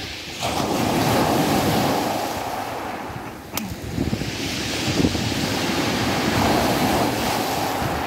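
Sea surf breaking and washing up a pebble beach, in two surges of foaming water, with a single sharp click between them.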